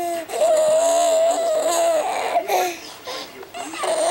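Baby vocalizing: one long held, slightly wavering "aah" lasting well over a second, followed by a few shorter cries and squeals.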